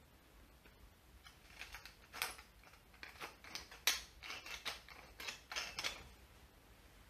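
Wooden pepper mill grinding black peppercorns, twisted back and forth in about a dozen short grinding strokes. The strokes begin about a second and a half in and stop about six seconds in.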